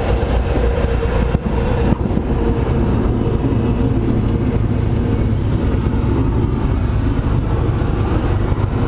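Single-engine light aircraft's piston engine and propeller running at low power as the plane rolls out on the runway after touchdown, heard as a loud, steady cabin rumble. A thin steady whine fades away about two seconds in.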